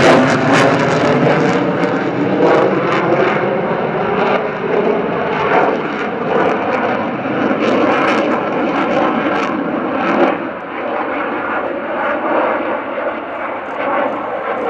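F-16 fighter jet flying a display pass, its jet engine loud and sweeping in pitch as it passes near the start, then settling into a steady, wavering jet noise.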